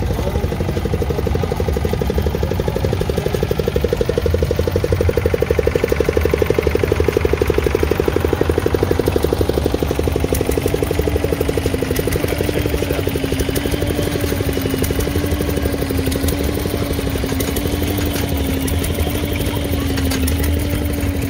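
Vintage stationary engines running with a rapid, even putt-putt of firing strokes. About ten seconds in, a steady, slightly wavering tone joins it.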